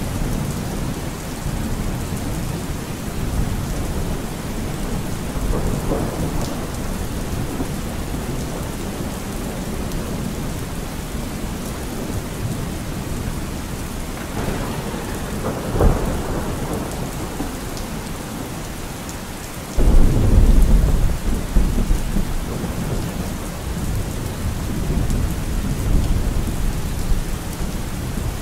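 Steady rain with thunder. There is a sharp crack just past halfway, and a loud, low roll of thunder starts suddenly about two-thirds through and dies away over several seconds.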